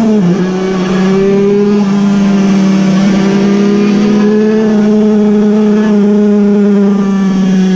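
Puch Cobra 50cc air-cooled, piston-ported two-stroke racing engine running flat out at high revs. Its pitch dips briefly just after the start, then holds high and steady, with other small racing two-strokes alongside.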